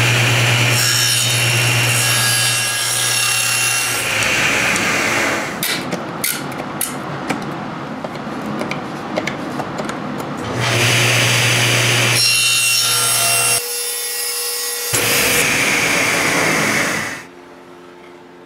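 Table saw running and ripping an old wooden drawer side along its fence, trimming off the worn, broken part. The cutting comes in several loud stretches, with scattered clicks and knocks between them.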